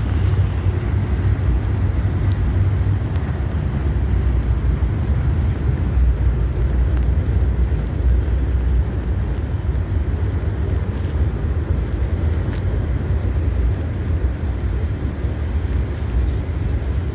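Norfolk Southern freight cars rolling past: a steady low rumble of wheels on the rails.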